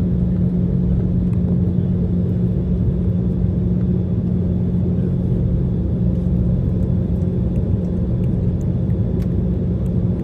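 Airliner cabin noise: the steady rumble of jet engines and airflow, with a constant low hum.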